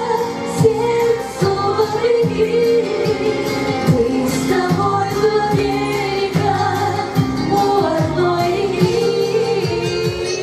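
A woman singing a Russian folk-style song into a microphone over instrumental backing, holding long notes.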